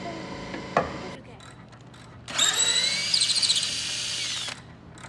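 Cordless drill with a socket on a piano tuning pin, spinning up with a rising whine, running for about two seconds while it unscrews the pin from the pinblock, then stopping abruptly. Before it, a steady hum ends with a sharp knock about a second in.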